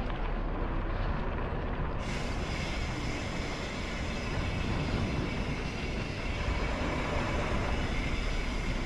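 Mountain bike rolling along a dirt trail: a steady rumbling ride noise of tyres and bike. About two seconds in, a steady high hiss with a faint whine joins it.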